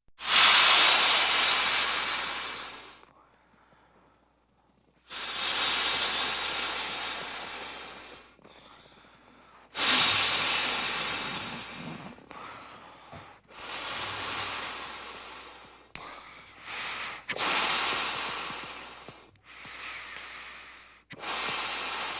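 Air hissing out of a balloon in about eight rushes. Each starts suddenly and loud, then fades away over one to three seconds.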